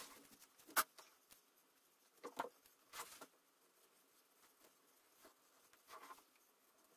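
Wooden-handled scratch awl tracing around a paper template on leather: a handful of short, faint scratching strokes, the sharpest about a second in.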